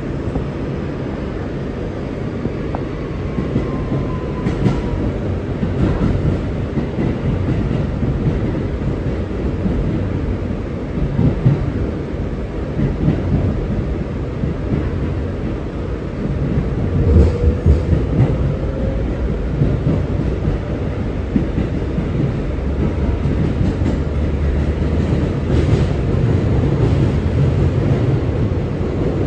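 R211A subway car running at speed, heard from inside: a steady rumble of wheels and traction motors, with occasional knocks from the wheels over rail joints and a brief faint wheel squeal about two-thirds of the way through.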